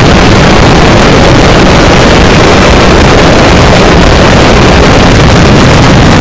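Dense, unbroken barrage of firecrackers from a Fallas mascletà, the bangs so fast they merge into a continuous roar that overloads the microphone.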